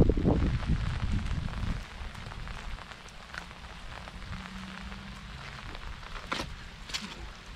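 Rain falling steadily, an even hiss, with a louder low rumble in the first two seconds and a couple of sharp ticks near the end.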